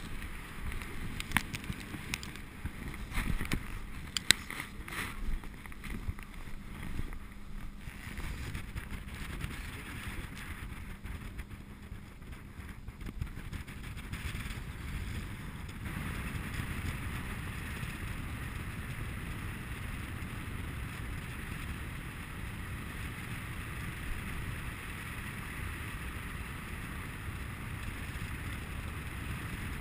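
Airflow rushing over the camera's microphone as a paraglider pilot climbs under his wing on tow. It settles into a steady rush from about halfway. In the first few seconds there are several sharp clicks and knocks, likely from the harness and risers being handled.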